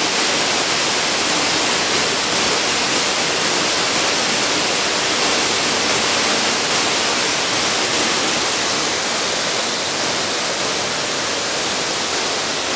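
Waterfall cascading into a rocky pool: a steady, even rush of falling water.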